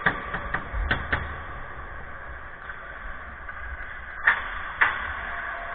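Hockey sticks and puck clacking on the ice: a quick run of sharp clacks, then two louder knocks about half a second apart a little past the middle.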